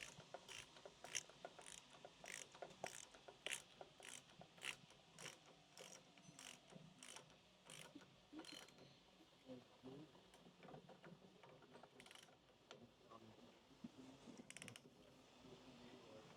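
Faint ratcheting clicks from a hand tool tightening a fork bolt down, about two clicks a second for the first eight or nine seconds, then slower and sparser.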